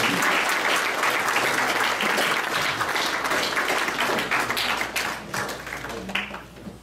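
Audience applauding, a dense spread of hand claps that thins out and dies away over the last second or two.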